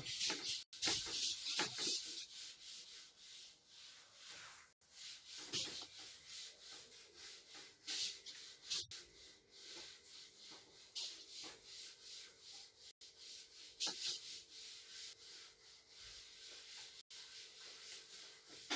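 Cloth duster wiping a chalkboard: repeated rubbing strokes, brisk and dense for the first couple of seconds, then sparser and softer.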